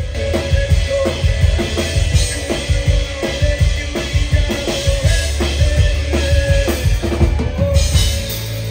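Live upbeat pop-rock band music played loudly through a stage sound system, with a drum kit driving a steady beat of kick and snare over a deep bass line.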